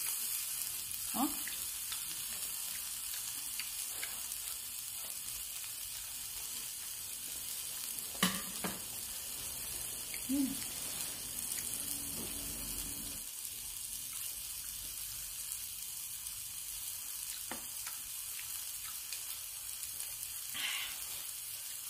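Pieces of black pork sizzling steadily on a round grill pan, with a sharp tap about eight seconds in.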